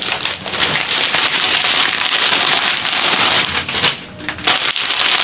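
Plastic packaging crinkling and rustling as a black plastic courier bag is opened and plastic-wrapped items are pulled out, with a short lull about four seconds in.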